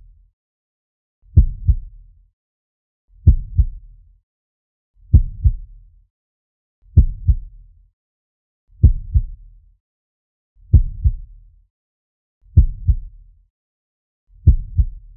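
Slow heartbeat sound effect: low double thumps, lub-dub, repeating evenly about every two seconds with silence between.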